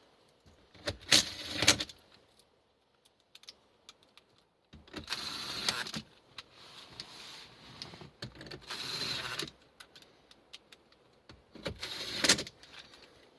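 Screws being driven into the dash fascia with a small power driver, in about four short whirring runs of a second or so each, with small clicks and handling noises between.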